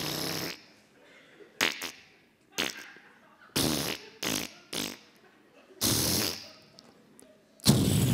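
Spluttering, raspberry-like mouth noises made by a puppeteer as sound effects for a paper Titanic ship puppet. They come as about seven short bursts with quiet gaps, then a longer, louder one near the end that trails off slowly.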